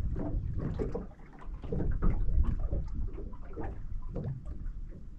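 Uneven low rumble of wind and water lapping against a small boat's hull, with scattered light knocks and clicks.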